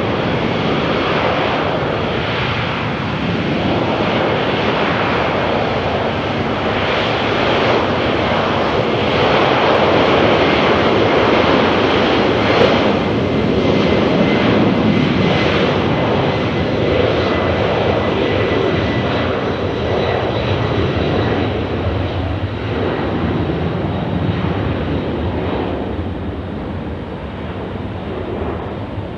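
Jet airliner passing by with its engines running loud. The noise swells to its loudest around the middle and fades toward the end, with a faint high whine over the rumble.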